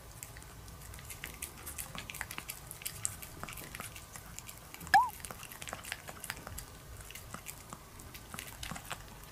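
Pomeranian licking a squeeze-tube paste treat: quick, irregular small wet clicks and smacks of its tongue and mouth. About halfway through, a brief high tone that rises and falls stands out as the loudest sound.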